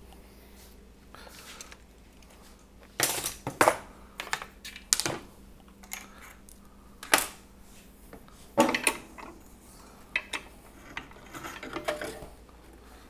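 A series of sharp knocks and clatters, with a few loud ones about 3 to 5 seconds in and again about 9 seconds in: tools, the pocket-hole jig and plywood being handled and set down between drilling passes.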